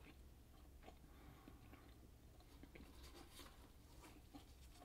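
Faint, wet chewing of a huge mouthful of Hubba Bubba bubble gum tape, with scattered small smacks and clicks over a low room hum.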